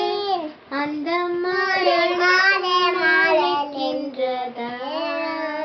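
A young girl singing a melody without accompaniment, holding long notes that step up and down, with a brief breath pause about half a second in.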